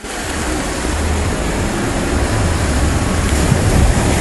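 Muddy floodwater rushing past in a fast torrent carrying logs and debris: a loud, steady rushing noise with a deep rumble underneath.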